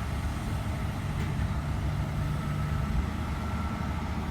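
Komatsu excavator's heavy diesel engine running with a steady low rumble. Its note steps up about a second in and settles back near the three-second mark, as when the engine takes load while the machine moves.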